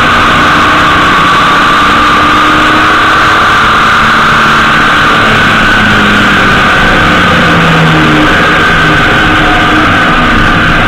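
Honda GL1800 Gold Wing motorcycle being ridden at road speed: a loud steady rush of road and wind noise, with the flat-six engine's hum beneath it drifting slightly in pitch.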